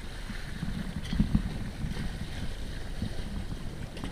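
Wind buffeting the microphone over the rush of water along the hull of a sailing yacht under way, a low gusty rumble that swells loudest about a second in.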